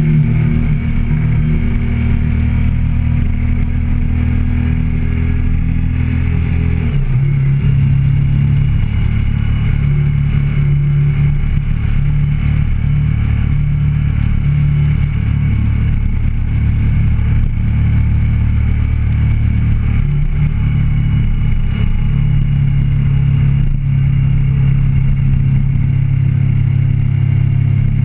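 Motorcycle engine running steadily while cruising on the road. The engine note changes about seven seconds in.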